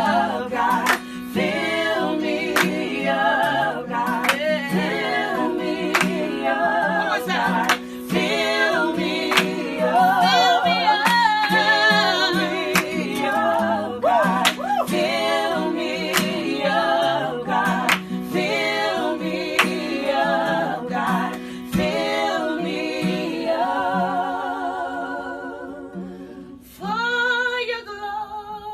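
Gospel singing: voices sliding between held notes with vibrato over a sustained low note, with sharp clicks keeping a steady beat. Near the end the backing drops away and one voice carries on alone with wide vibrato.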